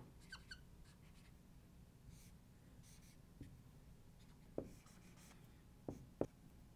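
Faint squeaky strokes of a dry-erase marker writing on a whiteboard, with a few light knocks near the end.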